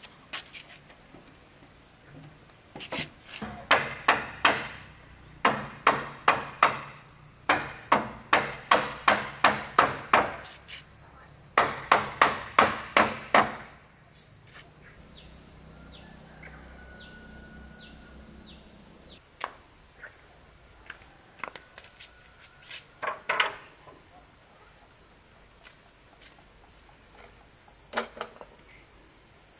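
Hammer blows on timber, knocking together the joints of a wooden bed frame: runs of quick strikes, about three a second, for around ten seconds, then a few scattered knocks. Insects chirp steadily throughout.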